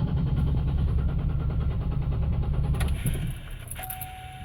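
2000 Chevrolet Monte Carlo SS's 3800 Series II 3.8 L V6 cranking on the starter for about three seconds without catching, then the cranking stops. This is the intermittent crank-but-no-start fault, which a new ignition control module connector and fuel filter have not cured. A steady tone begins near the end.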